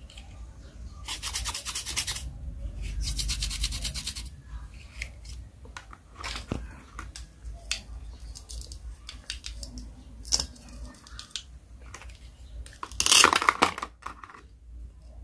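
Velcro-joined halves of a plastic toy play-food set being ripped apart and pressed together, a rasping crackle twice in the first few seconds and loudest near the end as the toy knife splits a toy mushroom, with light plastic clicks and taps in between.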